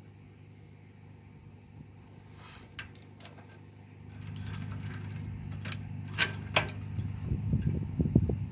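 Steel trailer safety chains clinking and the metal coupler and pin lock clicking as they are handled at the hitch, in scattered sharp taps. A low hum comes in about halfway and grows louder, with low thumps near the end.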